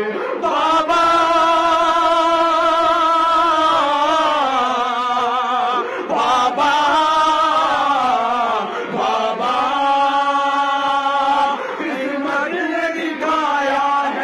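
A man singing a noha, a Shia mourning lament, into a microphone, drawing out long, wavering notes with breaks between phrases.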